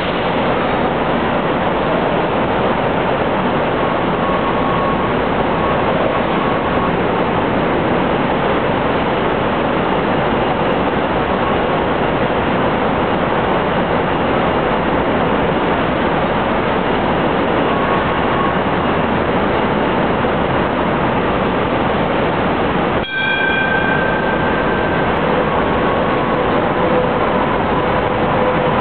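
Hong Kong Light Rail vehicles running through a station: a loud, steady running noise with faint steady tones. About 23 seconds in there is a brief high tone.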